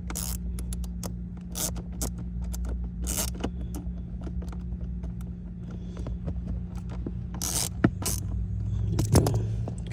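Irregular metallic clicks and scrapes as small hand tools are handled and a T20 bit on a socket extension is turned by hand to drive screws, over a steady low hum.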